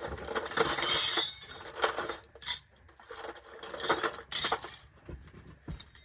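Metal sockets and hand tools clattering and clinking as they are rummaged through, in several irregular bursts, the longest about a second in.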